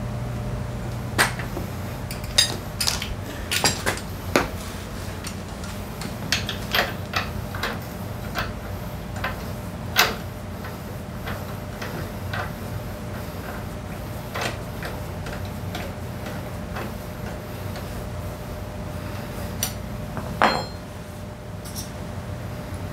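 Metal hand tools clinking and clicking as a T-handle socket wrench works on the front brake of a Honda PCX125 scooter: irregular sharp clinks, thickest in the first ten seconds, over a steady low hum.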